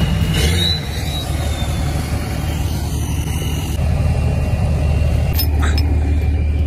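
Engine of a large off-road vehicle running at low speed, a steady low rumble.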